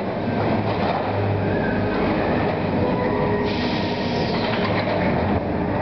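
Diesel excavators running steadily while a demolition grab tears at timber and corrugated sheet metal, with a brief harsh scrape about three and a half seconds in.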